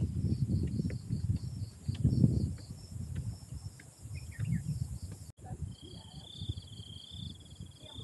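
Insects chirping in a fast, even pulse over the low thumps of footsteps on a stone trail. About five seconds in the sound cuts, and a wavering high insect buzz joins the chirping.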